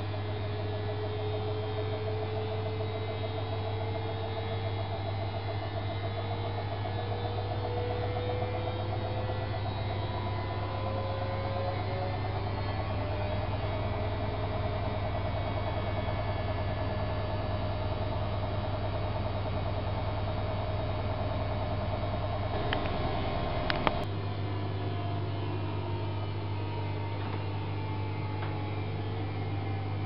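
AEG Öko-Lavamat 8650 front-loading washing machine running its wash cycle, a steady hum and low drone with a whine that rises slowly and then holds. About 24 seconds in the whine and part of the drone cut off with a click.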